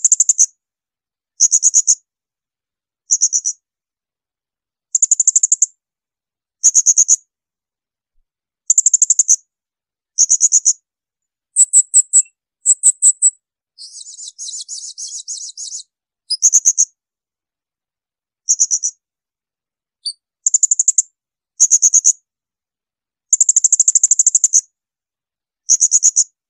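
Blue-crowned hanging parrot (serindit) giving its shrill, high-pitched 'tembakan' call: short bursts of rapid notes, each under a second, repeated every one to two seconds with clean gaps between them. A softer, scratchy chatter runs for about two seconds around the middle.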